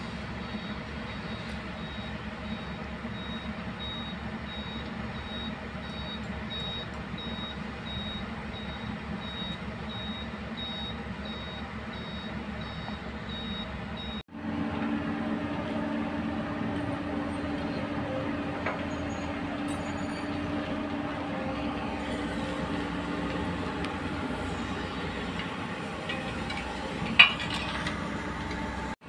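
A vehicle reversing alarm beeps steadily in an even on-off rhythm over the running diesel engines of excavators and trucks, then stops about halfway through. After that the hydraulic excavator's diesel engine runs louder and steadier, with one sharp clank near the end.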